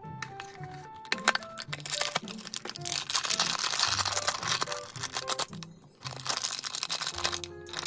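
Foil blind-box bag crinkling and tearing as it is pulled open, densest about two to five seconds in, over soft background music. A few sharp clicks from the cardboard box being handled come near the start.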